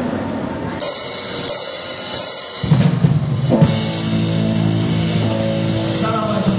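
Live band warming up: a few cymbal hits on the drum kit, then about two and a half seconds in the full band comes in loudly, with drums, cymbals and sustained bass and keyboard notes.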